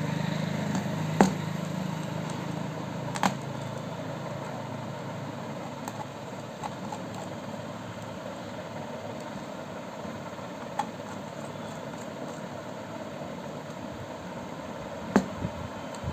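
A small screwdriver tightening the brass terminal screws on a row of modular switches: a few sharp clicks and taps of metal on metal, scattered through a steady background hum.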